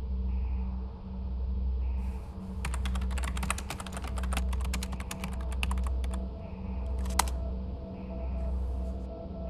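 Typing on a computer keyboard: a quick run of keystrokes for about three and a half seconds, then a single sharp key press about a second later. Underneath is a low drone that swells and fades about once a second.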